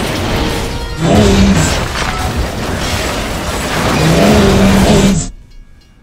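Crash sound effects of a derailing passenger train: loud, continuous rumbling and scraping of cars sliding along the track, with two low blaring tones, one about a second in and one about four seconds in. The noise cuts off suddenly about five seconds in.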